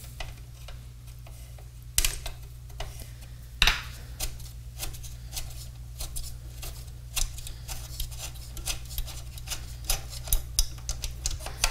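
Irregular light metallic clicks and scrapes of a 3/8-inch nut being worked loose with a tool from a quarter-inch jack on a radio receiver's front panel, with a couple of louder clicks in the first few seconds. A steady low hum runs underneath.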